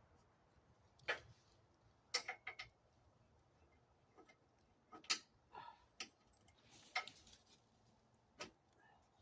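Scattered short clicks and knocks of parts and tools being handled while a go-kart is reassembled, including a quick run of three about two seconds in.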